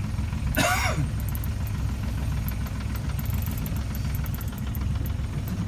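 Boat engine idling with a steady low rumble. A brief cry, falling in pitch, cuts across it about half a second in.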